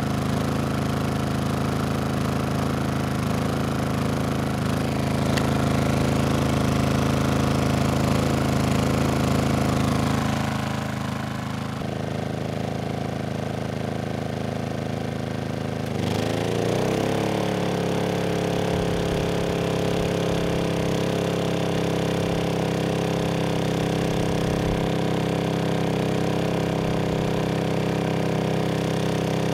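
Honda EU2000i inverter generator's engine running under a load test. Its speed sags about ten seconds in, then climbs in a rising whine about halfway through and settles at a higher steady pitch, the engine speed following the electrical load.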